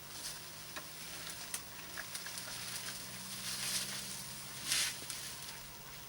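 Elephants feeding on vegetation: scattered crackling and snapping of twigs and rustling leaves, over a low steady hum. A short breathy hiss comes about four and a half seconds in.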